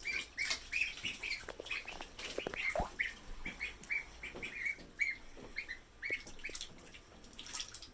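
Ducklings peeping, a steady run of short high chirps several times a second.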